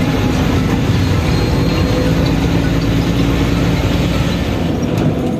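Bus engine running steadily with road noise, heard from inside the moving bus.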